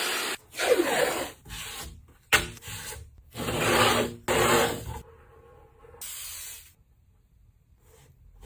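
Wood rubbing and scraping in several short passages, each about a second long, starting and stopping abruptly, then faint sound for the last few seconds.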